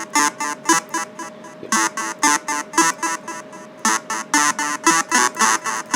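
Electronic synthesizer bleeps in a quick, uneven pattern, several short pitched beeps a second over one steady held tone, like a sci-fi space sound.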